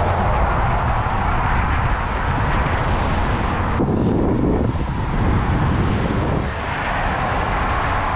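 Wind rushing and buffeting over the microphone of a camera carried on a moving bicycle: a steady, loud rumbling rush. About four seconds in the hiss dulls briefly and a lower rumble swells for about a second.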